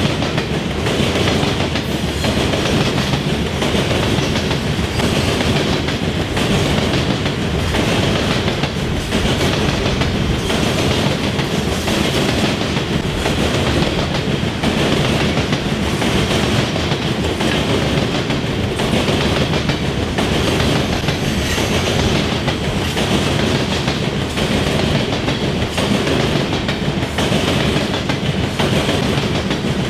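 Loaded coal hopper cars of a freight train rolling past steadily, their wheels clattering as they cross the rail diamonds.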